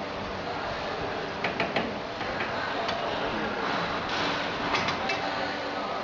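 DCP-1000 round duct elbow making machine running steadily, its rollers turning a round sheet-metal duct section, with a few sharp clicks about a second and a half in and again near the end.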